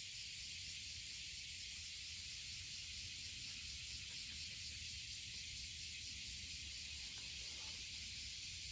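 Steady high-pitched hiss with a low rumble underneath, unchanging throughout: outdoor ambience.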